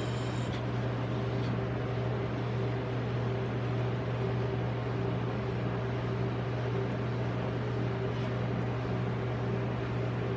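Steady mechanical hum with a fan-like hiss, typical of a rolled-ice-cream cold-plate machine's compressor and fan running, with no scraping or tapping.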